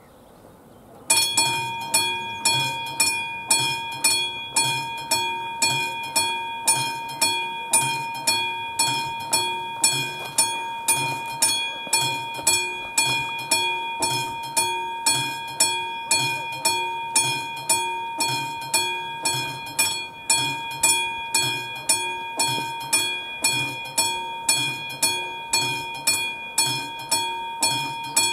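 Level-crossing warning bell of an AŽD 71 signal, a classic mechanical bell, starts ringing about a second in and keeps striking at about two strokes a second: the crossing has activated to warn of an approaching train.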